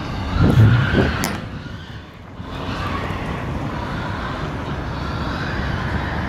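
Steady rumble of wind and road traffic, gusting hardest in the first two seconds. Through it come faint, high, wavering squeals of pigs held inside the slaughterhouse.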